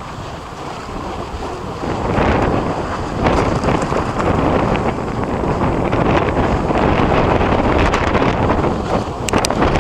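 Strong wind buffeting the microphone: a loud, steady rushing that swells about two seconds in, with sharp crackles near the end.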